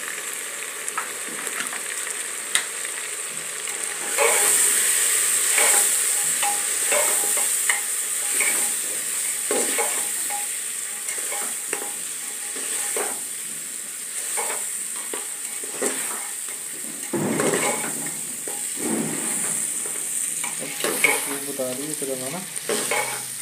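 Mutton and masala sizzling in hot oil in an open aluminium pressure cooker, with a steel spoon scraping and stirring against the pot in repeated strokes: the meat and spices being browned (bhuna). The sizzle gets louder about four seconds in.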